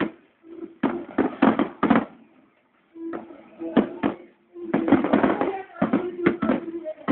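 Aerial fireworks bursting: clusters of sharp bangs in quick succession, with a pause about two seconds in and a dense run through the second half.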